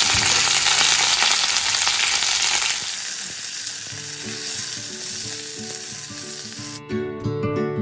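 Small onions, garlic and karpooravalli leaves sizzling in hot oil in a pan as they are sautéed; the sizzle is loud for about the first three seconds, then softer. Background music comes in and takes over near the end.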